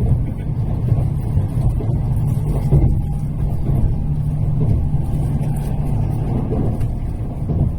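Tokaido Shinkansen train running, a steady low rumble heard from inside the passenger car.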